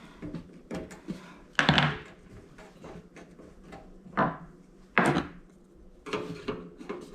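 Clunks and knocks of a steel toaster oven being handled and pried at during dismantling, with three louder knocks about one and a half, four and five seconds in.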